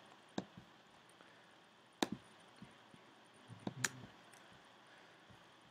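A few sharp computer mouse clicks, three clear ones roughly two seconds apart with fainter ticks between, faint against a quiet background.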